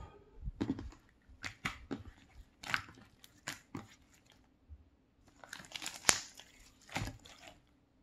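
Pink slime being stretched and folded by hand, giving a run of short clicks and crackles at irregular intervals, with a denser cluster about six seconds in.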